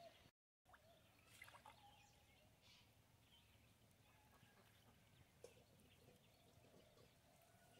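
Near silence: faint outdoor background with a few soft ticks, and the sound cutting out completely for a moment just after the start.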